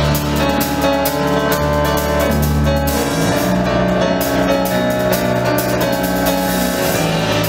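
Live band playing: electronic keyboards and guitars over a drum kit, with a deep bass line and a steady cymbal beat, coming in just at the start.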